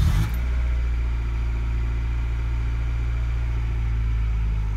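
Acura Integra's four-cylinder engine catching right at the start with a brief flare, then idling steadily. It starts with the clutch pedal pressed in, which shows that the newly wired clutch safety switch works.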